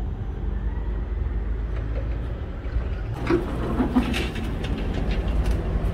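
Car engine running, a steady low hum. About three seconds in, a few sharp clicks and knocks come in over it.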